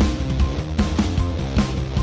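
Background music with a steady beat, about two and a half beats a second, over sustained low notes.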